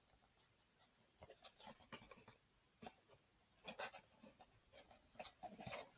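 Near silence, with faint scattered scrapes and taps from a small cardboard blind box being handled, a little busier near the end.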